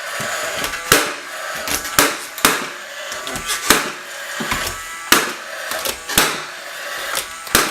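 Nails being driven into wooden cove molding trim: about seven sharp strikes at uneven intervals, roughly one a second.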